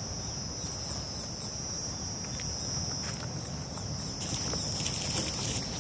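Insects droning steadily at a high pitch, with a low rumble underneath. The drone swells a little louder about four seconds in.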